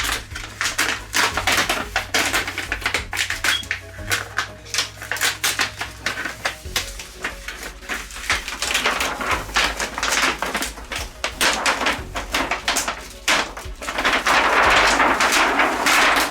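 Rapid clicks, taps and rustling of paper and plastic parts being handled inside an opened LED TV, with a louder, denser stretch of rustling near the end.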